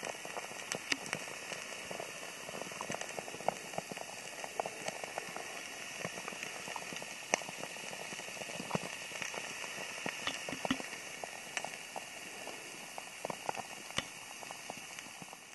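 Water boiling hard in a pot on a small Four Dog titanium camp stove fuelled with pellets and alcohol: a steady bubbling hiss with many scattered pops and crackles.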